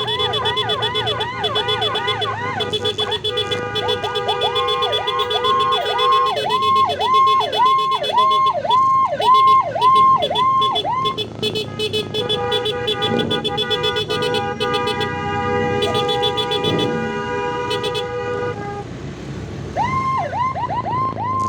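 Emergency vehicle siren sounding, cycling through quick rising-and-falling wails, then a steady blaring tone for several seconds, then the quick wails again near the end. Road traffic runs underneath.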